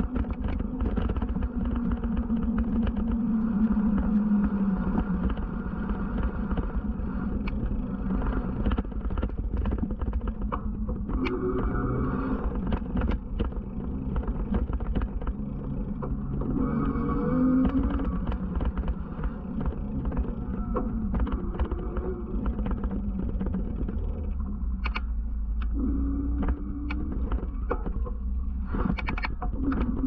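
Low rumble of wind on the microphone of an action camera riding on a moving bicycle, over road traffic whose engines rise and fall in pitch as vehicles pass several times. Frequent short clicks and knocks run through it.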